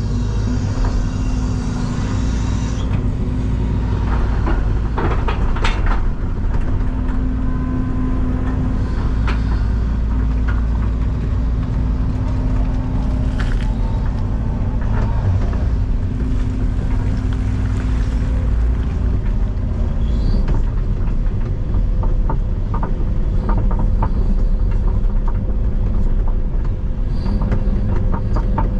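Excavator's diesel engine running steadily under work. There are occasional sharp knocks, and a run of rapid clicks and clatters in the last few seconds.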